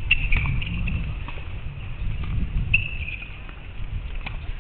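Wind rumbling on an outdoor microphone, with scattered short knocks of tennis balls bouncing and being struck, the player bouncing the ball before a serve.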